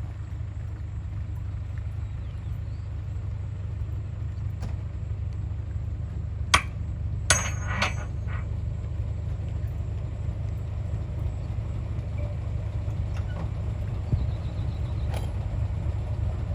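Heavy diesel earthmoving machinery running steadily with a low rumble, broken by a few sharp clanks, the loudest about six and a half seconds in and a short cluster just after.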